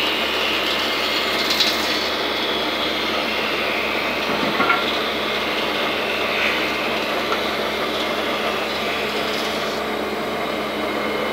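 Stationary woodworking saw running steadily, with a high whine for about the first two seconds as a board is cut into slats. A few sharp knocks of wood come about one and a half and four and a half seconds in.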